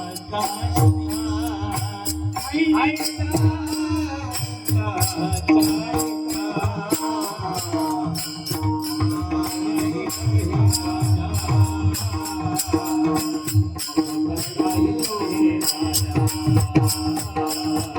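Devotional kirtan music: a steady rhythm of drum strokes and jingling percussion over a held drone note.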